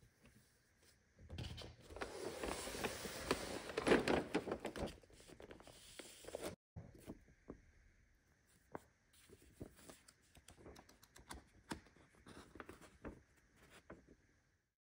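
Hands handling a LEGO set's cardboard box and paper instruction booklet. A stretch of rustling and crinkling with many small clicks starts about a second in and lasts to around five seconds, followed by scattered faint taps and paper handling.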